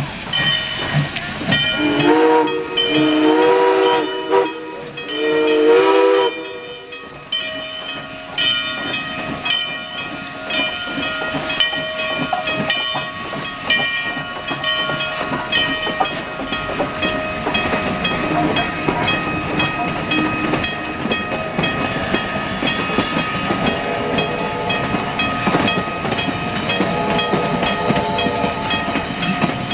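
Steam locomotive's chime whistle sounding two long blasts, the signal that the train is about to move off. Then the engine's exhaust chuffs in a steady beat that grows faster as it picks up speed and the cars roll past.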